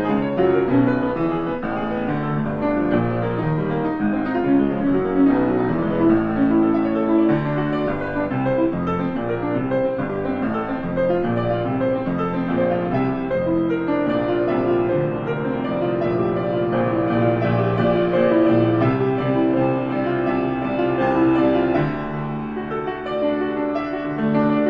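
Grand piano played solo and improvised: a continuous flow of many overlapping, sustained notes, weighted toward the middle register, with a briefly softer passage near the end.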